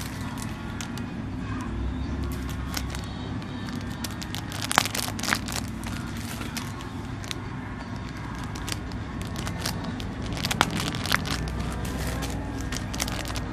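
Packaging being handled and crinkled, with scattered crackles and a few sharp clicks over a steady low hum.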